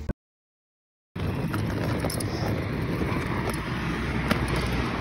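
Silence for about a second, then a steady rumble of a wheeled suitcase's small wheels rolling over a rough tarmac pavement.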